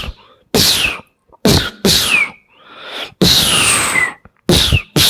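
Beatboxer imitating a zipper with the mouth: a run of about six quick hissing rasps, each sliding down in pitch like a zip being pulled.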